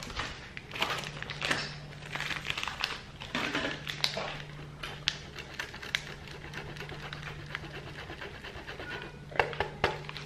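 Cheese being grated on a metal handheld grater: a run of quick rasping scrapes, densest at first and lighter later, with a couple of sharper knocks near the end.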